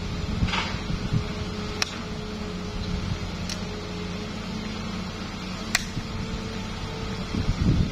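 Hitachi hydraulic excavator's diesel engine running steadily as the boom lowers and reaches toward the dirt, with three sharp metallic clicks spread through it.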